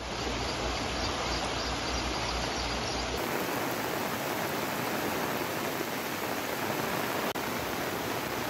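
Steady rushing water noise of stormy weather, with a low rumble under it that drops out about three seconds in, after which the rush sounds brighter.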